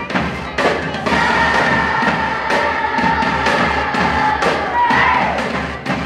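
A crowd of children singing along with a recorded upbeat theme song over a steady drum beat, about two beats a second. A long note is held from about one second in to about four and a half seconds in.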